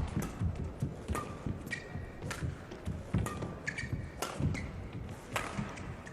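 Badminton rally: rackets striking the shuttlecock in sharp cracks about every half second to a second, with the players' footwork thudding on the court between strikes.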